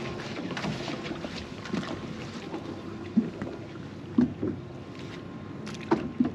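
Water lapping against the hull of a drifting fishing boat, with several short knocks and slaps, the clearest about three, four and six seconds in, while a cast net is hauled back in.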